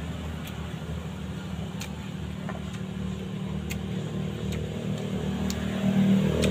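A steady low rumble, with a few faint sharp clicks from a spoon working at sprouted-coconut pulp on a plastic plate.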